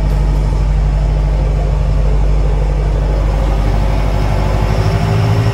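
A boat's engines running under way, heard from inside the wheelhouse as a steady low drone with the rush of water along the hull; the engine note strengthens near the end as the boat picks up speed.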